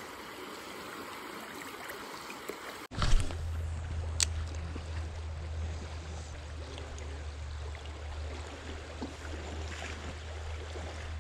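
Flowing river water. About three seconds in the sound cuts to a louder section with a steady low rumble under the water noise and one sharp click.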